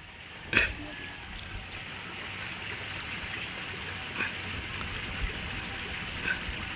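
Steady outdoor hiss of the kind that running water or wind makes, with one short sharp sound about half a second in and a few faint ticks later.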